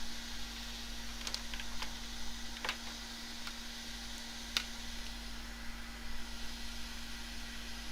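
Steady low hum and hiss, with a few light clicks and taps from about one to five seconds in, the sharpest near the middle.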